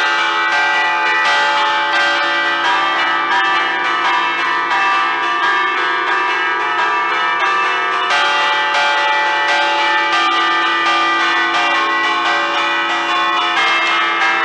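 Five bronze church bells of an Ambrosian peal in D, cast by Giorgio Pruneri in 1875, chimed by hand with small cords that pull the clappers against the hanging bells. It is a fast festive allegrezza, with strokes following one another without pause and the bells' tones overlapping in a continuous ringing.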